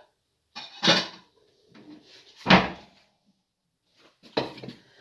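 Kitchen cupboard being rummaged for a frying pan: three sharp knocks and clatters of doors and cookware, the loudest about halfway through.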